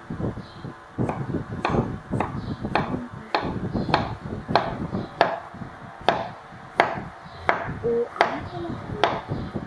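Kitchen knife chopping squash on a wooden cutting board: the blade strikes the board steadily, about one sharp knock every two-thirds of a second, beginning about a second in.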